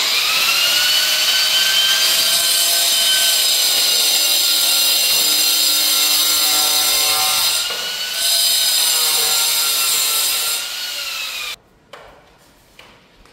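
Electric angle grinder cutting natural stone cladding strips: a loud steady high whine over a gritty hiss that dips briefly about eight seconds in, then winds down with falling pitch and stops shortly before the end, followed by a few light knocks.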